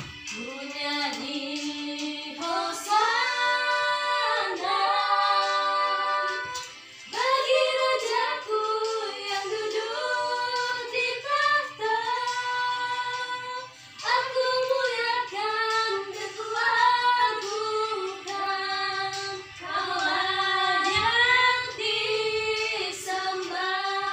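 A woman singing a song, in sung phrases a few seconds long with short breaks between them.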